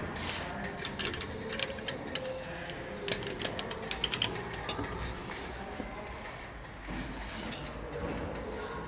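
Old Autelca ticket vending machine clicking and rattling as its selection keys are pressed: a quick run of sharp clicks about a second in, and another from about three to four seconds in.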